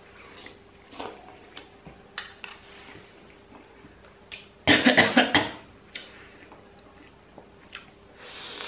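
Eating sounds: a metal spoon clicking lightly against a ceramic bowl a few times, and about five seconds in a loud half-second slurp of hot momo broth, followed near the end by a breathy exhale.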